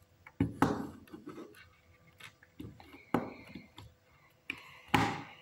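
Plastic Lego Technic parts clicking and knocking as the motorised model, built on a battery box, is handled and set down on a wooden table. A handful of separate knocks, the loudest about half a second in and near the end.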